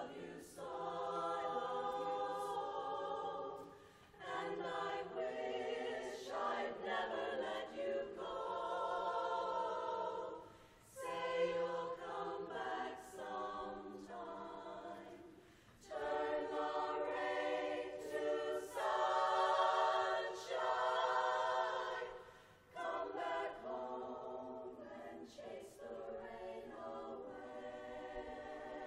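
Women's chorus singing a cappella. The phrases are broken by brief pauses about every five or six seconds.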